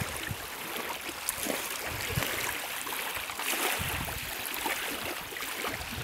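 Small waves lapping at a pebbly lakeshore, a steady watery wash, with a few irregular low rumbles on the microphone.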